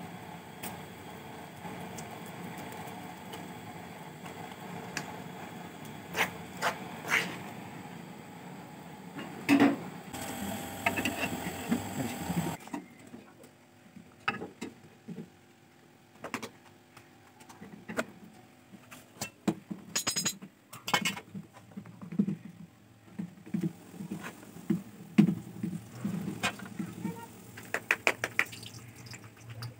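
Scattered clinks and knocks of a metal ladle against a stainless steel cooking pot, over a steady hiss that cuts off suddenly about twelve seconds in.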